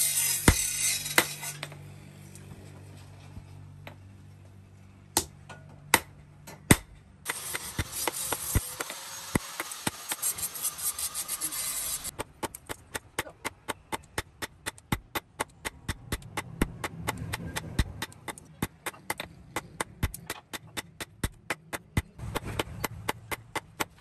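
Hand hammer striking hot steel on a steel anvil: scattered blows with stretches of hiss in the first half, then a steady run of ringing blows at about three a second from about halfway.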